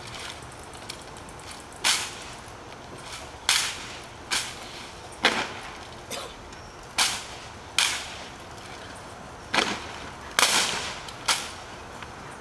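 About ten sharp cracks and slaps at uneven intervals of roughly a second: a silent drill platoon's hands slapping M1 Garand rifles and heels striking the pavement in unison as the rifles are worked and the column marches, with no spoken commands.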